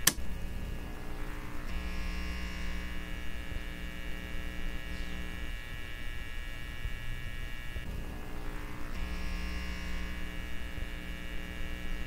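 Steady electric hum made of several fixed tones. It gets fuller from about two to five seconds in, thins out, and fills in again from about nine seconds on.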